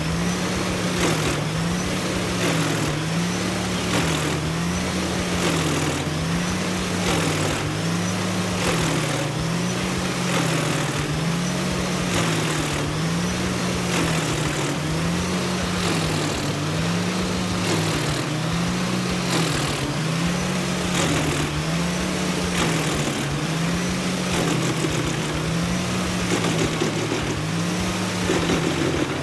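Wood chipper's engine running steadily, its pitch rising and falling evenly about once every second and a half, over a dense noisy rush.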